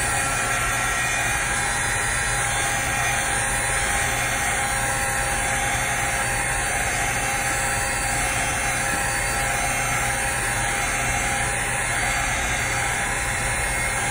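Craft heat tool (embossing heat gun) running steadily, its fan blowing hot air to heat-set and dry ink on a paper tag.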